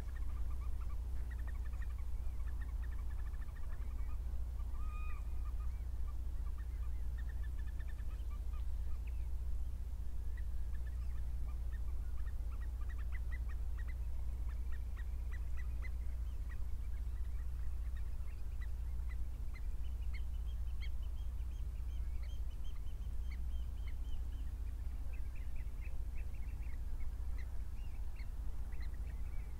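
Wild birds calling: scattered short calls and quick chattering, with a few longer, higher calls about twenty seconds in, over a steady low rumble.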